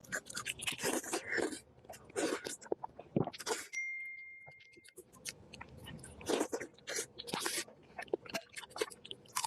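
Close-miked chewing and crunching of food, in clusters of crisp bites. A brief steady beep sounds about four seconds in.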